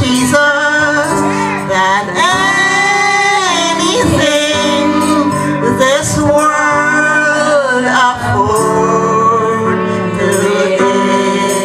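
Male and female voices singing together over instrumental accompaniment, with long held notes.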